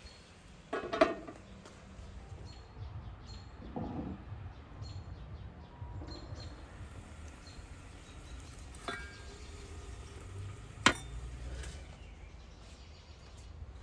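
Scattered clinks and clatters of metal cookware and tableware over a steady low rumble of outdoor ambience. The loudest are a clatter about a second in and a single sharp clink near the end.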